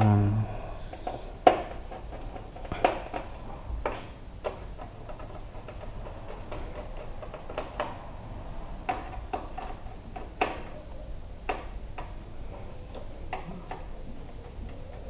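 Irregular small clicks and ticks of a screwdriver working motherboard screws into a computer case during a final tightening, a dozen or so spread out over the stretch, over a faint steady hum.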